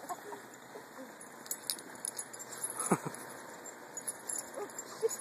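A husky puppy and a German shepherd play-wrestling in snow: collar tags and harness jingling, with scuffling. About three seconds in, one short falling yelp.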